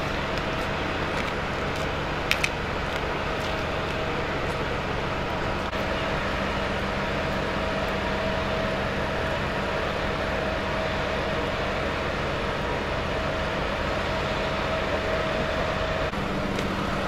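Heavy vehicle engine running steadily with a steady whine over it. The whine cuts off near the end. A short sharp clack about two seconds in.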